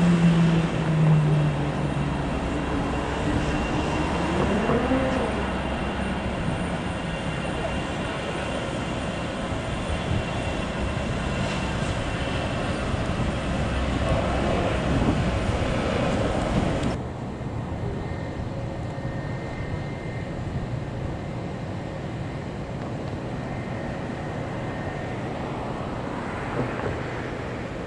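Jet airliner engines running as the aircraft taxi, a steady rumble and whine. A tone falls in the first second or so and a second one rises and falls about four to five seconds in. About seventeen seconds in the sound drops suddenly to a quieter, steady engine hum.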